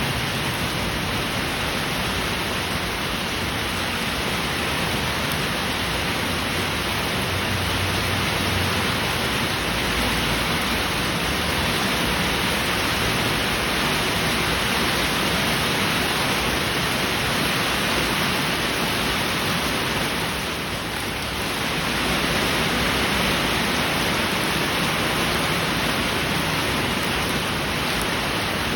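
Heavy rain falling steadily, an even hiss with no thunder, easing very slightly for a moment about two-thirds of the way through.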